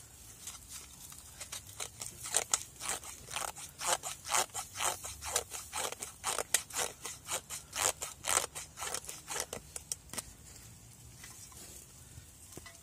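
Knife blade scraped again and again along a ferrocerium rod over a metal tin, about two or three scrapes a second, stopping about ten seconds in.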